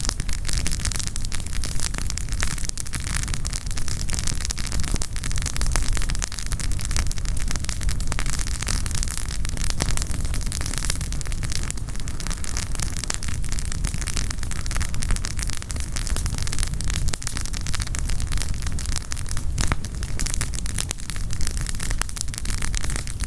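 Wood campfire crackling: a dense, steady stream of small crackles and pops from burning firewood over a low rumble.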